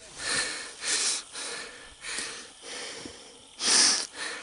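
A person breathing hard close to the microphone, from the exertion of a steep rock climb. The breaths come as a series of loud, hissy puffs, with the loudest a little before the end.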